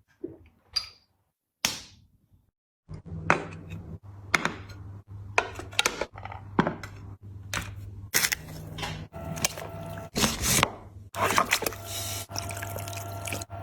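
Close-miked eating sounds: a run of sharp clicks and knocks from utensils and dishes, with a steady low hum coming in about three seconds in.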